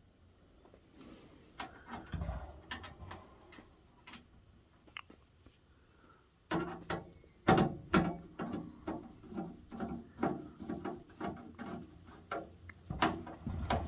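Clicks and knocks of a screw being driven into an electric heater's casing and of the parts being handled: a few scattered clicks at first, then from about halfway a quick, fairly even run of clicks and knocks, roughly three or four a second.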